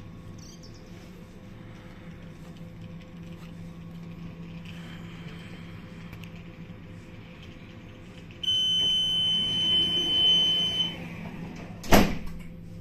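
Tram door-closing warning signal: a steady high beep lasting about two and a half seconds, then the doors shut with a sharp thud about a second later. A steady low electrical hum of the stationary tram runs underneath.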